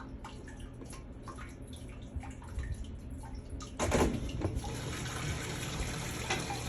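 Water dripping and trickling in a Whirlpool top-load washer's tub, then a sudden louder rush of water about four seconds in that goes on steadily with a low hum.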